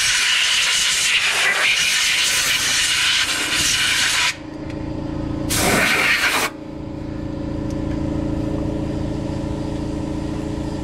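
Compressed-air blowgun blasting brake dust off a truck's rear wheel hub: a long hiss of about four seconds that cuts off, then one short second blast about a second later. A steady machine hum runs on underneath once the air stops.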